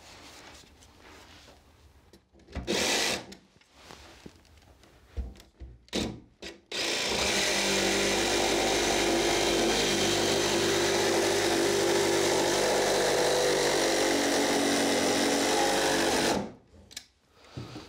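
DeWalt cordless jigsaw cutting into a wooden board wall: a couple of short bursts, then a steady cut of about ten seconds that stops suddenly near the end.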